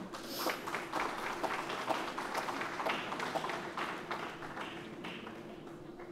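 Audience applauding, the clapping thinning out and fading over the last couple of seconds, with a steady low hum underneath.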